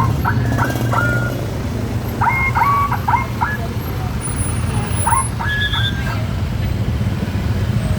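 Bus telolet horn (Basuri multi-tone horn) playing three short melodic phrases of stepped tones, over the steady low rumble of bus and traffic engines.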